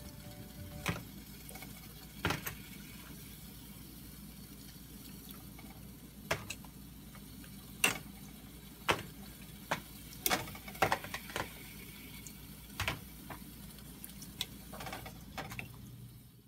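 Pot of water with pork neck heating toward a simmer: scattered sharp clicks and pops over a steady low hum, a few clustered near the end.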